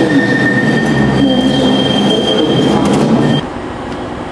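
Train wheels squealing on the rails, a high steady squeal over the rumble of a train, which cuts off suddenly about three and a half seconds in. A quieter, steady background hum follows.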